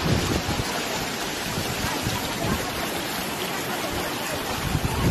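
Floodwater from hurricane rains rushing down a street as a fast, churning torrent: a steady noise of turbulent water with uneven low surges.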